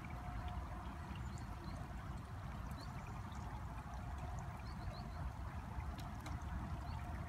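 Wind rumbling on the microphone, with a faint steady whine from the RC crawler's electric motor and drivetrain. Small bird chirps come and go over it.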